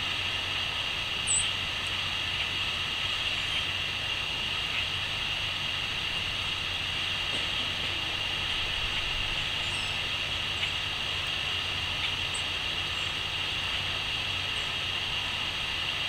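Steady outdoor background of low hum and hiss, like distant traffic, with a few faint, high, short chirps from small garden birds. One sharper chirp comes about a second in.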